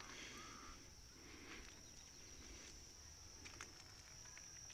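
Near silence: faint outdoor ambience with a steady high-pitched hum, a short bird chirp right at the start and a few faint ticks.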